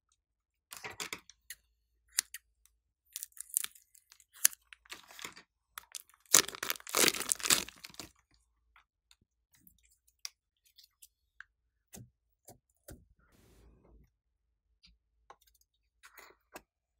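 Green slime squeezed out of a plastic piping bag and handled, crackling and squelching in irregular bursts that are loudest from about six to eight seconds in. After that come sparse small clicks and taps, with a plastic bottle cap handled near the end.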